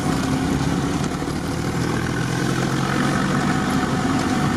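A vehicle's engine running steadily under way, heard from inside the cabin, with tyres hissing on a wet road.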